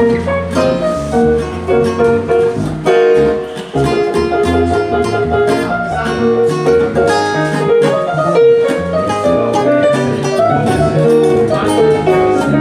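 Nord Electro 3 stage keyboard played two-handed in a busy passage of quick notes and chords, on a bright voice with sharp note attacks that PANN hears as close to a guitar.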